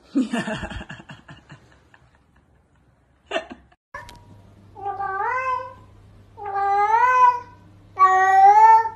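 A brief rattling clatter at the start, then a domestic cat giving three long meows about a second and a half apart, each rising and then falling in pitch, with a low steady hum behind them.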